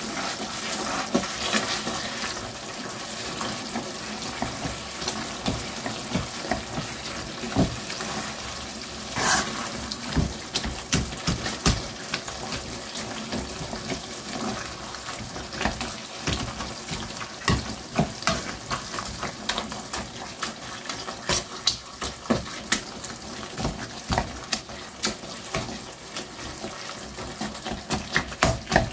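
Metal utensil knocking and scraping irregularly against a non-stick wok while mashing soft-cooked aubergine, over a steady hiss. The knocks come thicker in the second half.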